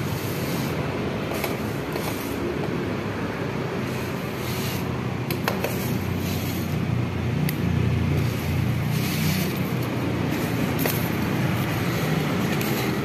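Yamaha Vega R New motorcycle's single-cylinder four-stroke engine running through an open racing exhaust, swelling briefly about eight seconds in.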